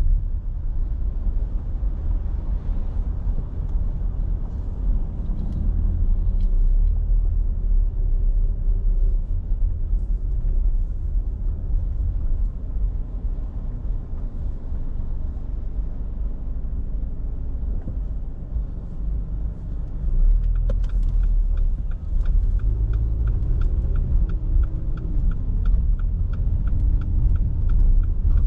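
Car cabin rumble from road and tyre noise while driving slowly, with the engine's tone rising and falling. About twenty seconds in, a turn-signal indicator starts ticking evenly, about three clicks a second, and keeps going to near the end.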